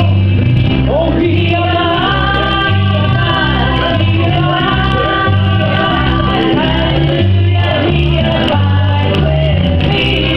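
Gospel hymn sung by women into microphones over an instrumental accompaniment with a bass line that steps from note to note.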